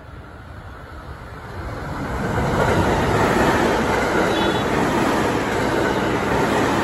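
A 12-car JR West 225 series electric train passing through the station at speed without stopping. Its noise swells over the first few seconds as it arrives, then holds as a loud, steady rush of wheels on rail while the cars go by.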